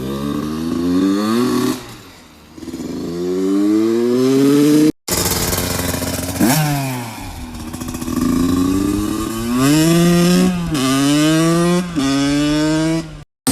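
A freshly rebuilt vehicle engine accelerating through the gears: its pitch climbs, drops back at each shift, and climbs again, with several quick shifts in the second half. The sound breaks off for a moment about five seconds in.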